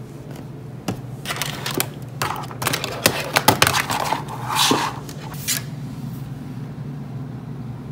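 Things being handled and set down on a desk, including a hard glasses case: a run of sharp clicks, knocks and scrapes. They stop about two-thirds of the way through, over a steady low hum.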